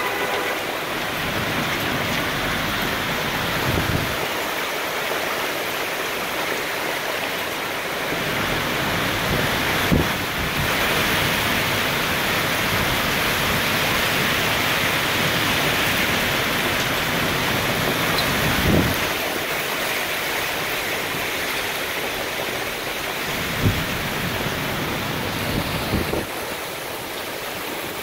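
Heavy hailstorm with rain, hailstones and rain pelting down in strong wind as a dense, steady hiss, with a few brief thumps scattered through it.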